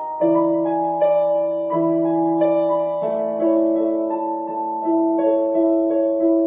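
Background piano music: sustained chords, a new chord or note struck about every half second to a second.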